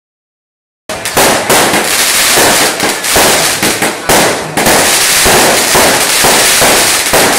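Fireworks going off in quick succession, starting about a second in: shells shot up on trails and bursting into sparks, making a loud, dense, continuous crackle of bangs.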